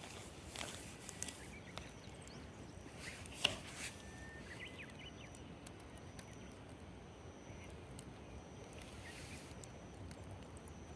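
Campfire crackling: a few sharp pops and clicks, the loudest about three and a half seconds in, over a faint steady background.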